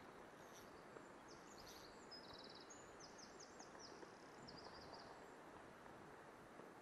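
Faint song of a small bird: a run of high, quick chirps and a short trill through the middle seconds, over a steady low hiss.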